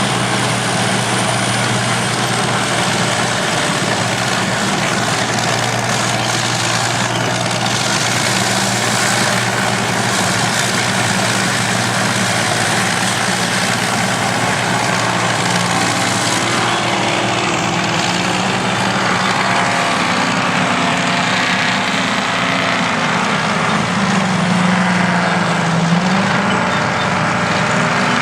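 Heavy engines of vintage earthmoving machines (bulldozers, scrapers and haulers) running together, a steady engine note through the first half, then engine notes rising and falling as the machines work.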